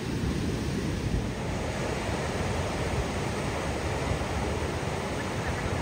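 Ocean surf breaking and washing in, a steady rush of noise, with wind rumbling on the microphone.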